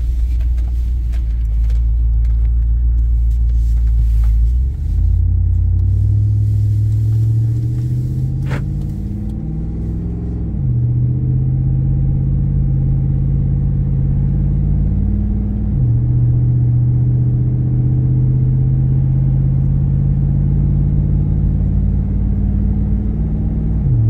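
Cammed 6.4-litre HEMI V8 of a Ram 2500, with an FRP Hellfire 2.0 camshaft and a Karnage muffler, heard from inside the cab. It rumbles low at first, then accelerates, its note climbing through the gears. The pitch drops at two upshifts, about ten and sixteen seconds in.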